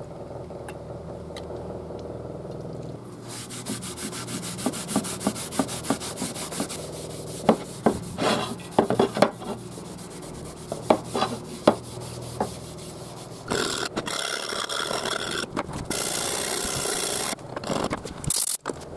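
Workshop sounds in several short takes: a steady low hum with light scraping, then a band saw running and cutting through a thin sheet with a run of sharp scrapes and clicks, then a steady rasping noise near the end.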